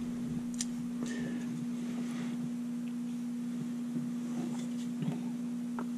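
A steady low hum at one unchanging pitch, with a few faint clicks and rustles.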